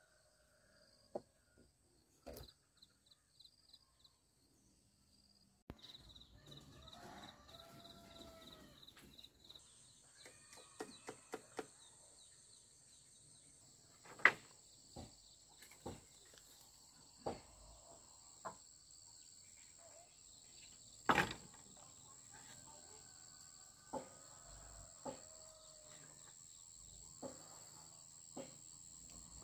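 Insects, crickets among them, chirring steadily in high thin tones. In the second half there are scattered sharp knocks and taps every second or two.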